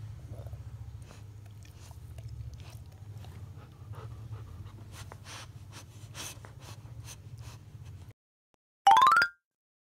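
Labrador retriever mouthing and chewing a knitted plush toy: wet chewing and licking clicks over heavy nose breathing. The sound cuts off about eight seconds in, and a moment later a short, loud rising whistle-like sound effect plays.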